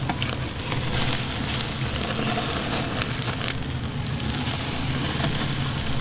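Beef burger patties sizzling over direct heat on a charcoal grill: a steady hiss of cooking fat with scattered sharp crackles and pops.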